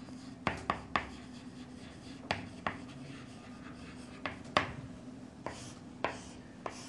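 Chalk writing on a chalkboard: a string of short, separate scratches and taps as letters are written, some louder than others.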